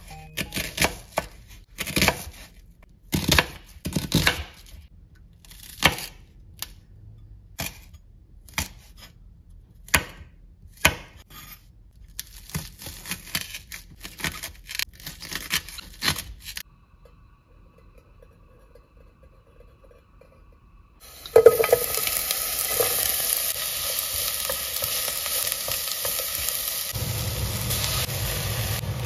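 A kitchen knife slices through a white onion on a wooden cutting board in separate chops, then chops a green onion faster. After a short pause, onion starts sizzling as it fries in a hot pot, a steady sizzle that runs on, with a low hum joining near the end.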